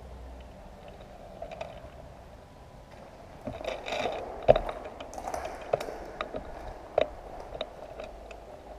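Scraping and rustling that grows louder about a third of the way in, with several sharp clicks or snaps, the loudest about halfway through.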